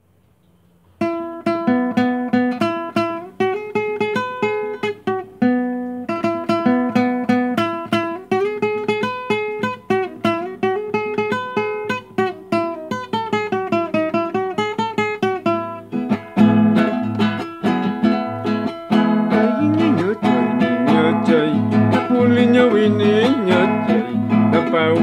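Acoustic guitar playing a carnaval tune. A picked melody starts about a second in and breaks off briefly near six seconds. About two-thirds of the way through, the playing turns to full strummed chords.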